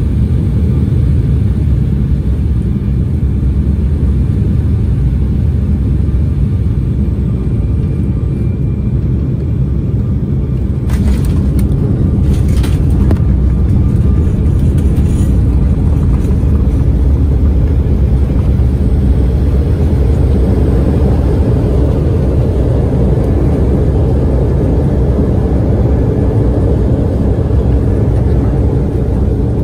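Cabin noise of an Embraer E175 jet airliner landing: a steady low rumble of engines and airflow, broken by a few sharp knocks about eleven to thirteen seconds in as the wheels touch down hard. The rumble of the runway rollout follows.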